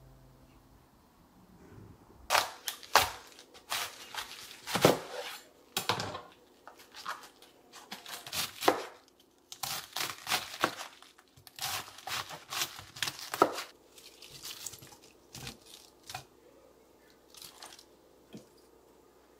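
Chef's knife cutting through a raw head of green cabbage on a cutting board: a run of sharp, crisp crunches and cracks as the blade splits the tight leaves. The cuts come thick and fast at first and are sparser near the end.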